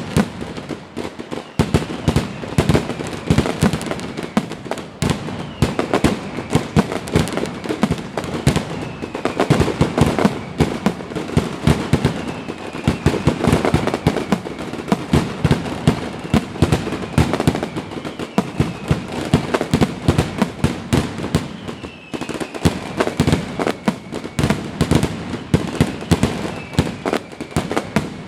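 Fireworks display going off nonstop: a dense run of bangs and crackling bursts, with a few faint falling whistles.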